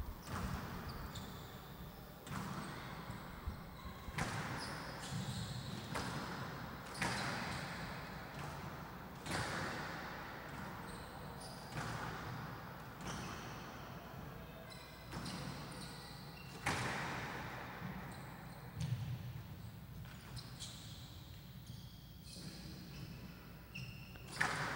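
Squash rally: the ball cracks off the rackets and smacks against the front wall and glass side walls, a sharp hit every second or two, each with a short echo in the hall.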